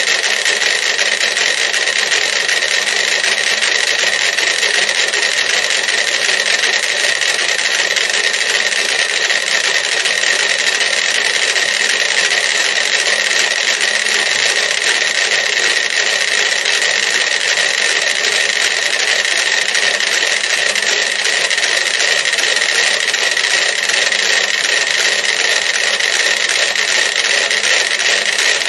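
About thirty small mechanical pendulum metronomes ticking together out of step, their clicks running into one dense, steady clatter.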